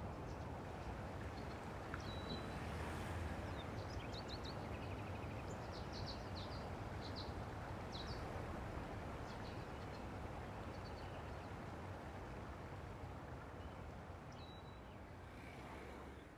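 Outdoor ambience: scattered short bird chirps over a steady background hiss, fading out at the end.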